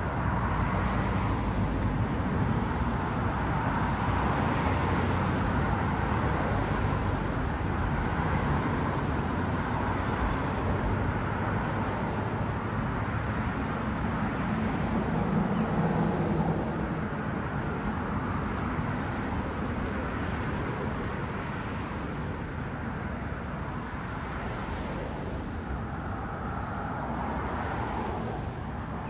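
Road traffic: cars driving past on the street, a steady noise of engines and tyres that eases off a little past halfway.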